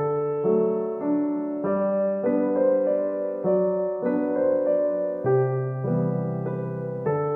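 Background piano music, a slow run of struck notes and chords.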